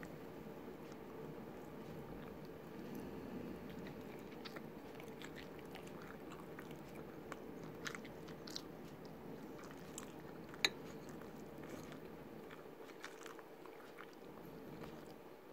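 Faint chewing and small mouth clicks of someone eating rice, scattered irregularly, with one sharper click about ten and a half seconds in, over a steady low hum.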